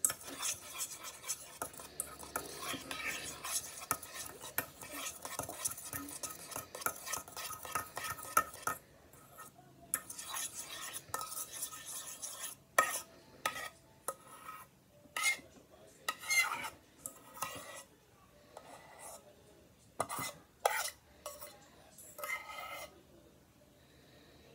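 A toy doll fork stirring and scraping a glue-and-lotion slime mixture in a small stainless steel pot. The scraping is fast and continuous for the first eight or nine seconds, then breaks into separate, spaced-out strokes that thin out near the end.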